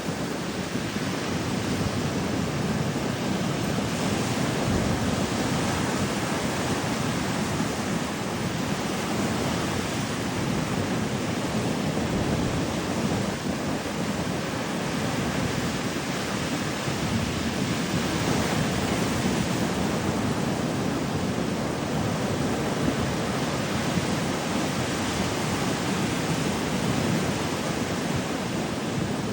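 Ocean surf washing up on a beach, a steady rushing noise that swells gently now and then.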